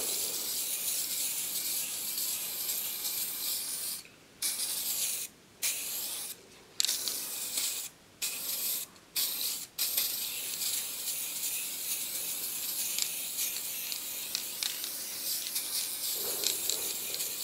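Aerosol spray can of stove enamel paint hissing as it sprays an even coat onto an aluminium sheet. The steady hiss breaks off briefly several times between about four and ten seconds in, as the nozzle is let go and pressed again, then runs on unbroken.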